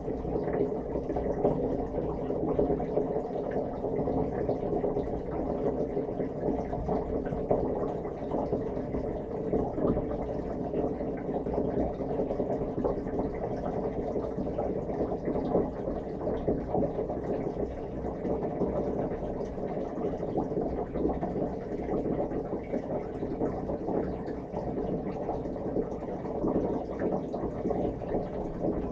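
Dishwasher running mid-cycle, recorded from inside the tub: the circulation pump hums steadily while the spray arms keep throwing water against the racks and the walls. The sound is muffled and even throughout.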